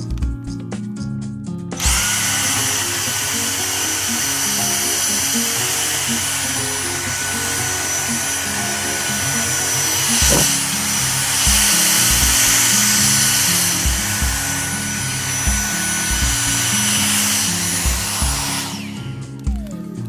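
Dyson DC74 cordless stick vacuum switched on about two seconds in and running for about fifteen seconds: a steady high-pitched motor whine over a strong rush of air. Near the end it is switched off and the motor winds down in falling pitch. Background music with a bass line plays throughout.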